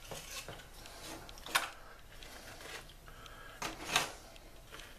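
Crisp corn tostada shells being laid into a disposable aluminium foil pan, giving light crackles and clicks of the brittle shells against each other and the foil, with two sharper clicks about a second and a half in and near the end.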